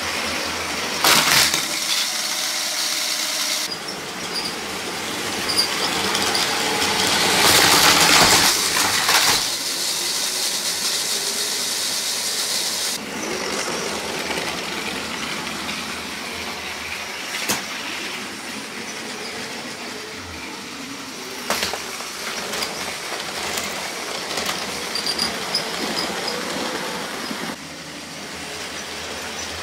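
Motorised Lego trains running on plastic Lego track: the motors whirring and the plastic wheels rolling over the track, with a few sharp clicks. The sound swells for a couple of seconds about eight seconds in and changes abruptly several times.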